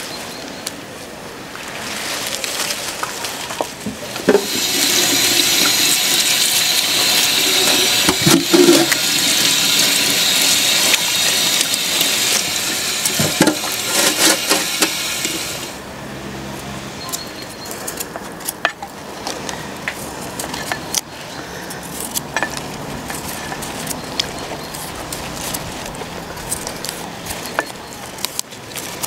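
Water running hard from a hose into a metal basin of beetroots, starting a few seconds in and cut off suddenly about halfway. Afterwards come scattered small clicks and scrapes of a knife peeling a beetroot.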